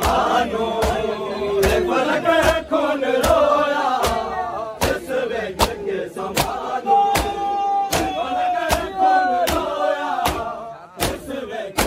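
A crowd of mourners chanting and calling out together over matam: hands beating chests in unison, sharp strikes a little more than once a second.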